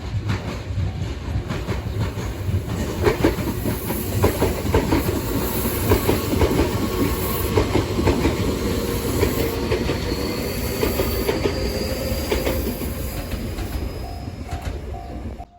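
Chikuhi Line train passing over a level crossing, its wheels clacking over the rail joints, with a faint rising high whine in the second half. The crossing bell rings in repeated dings at the start and again near the end. The sound cuts off abruptly.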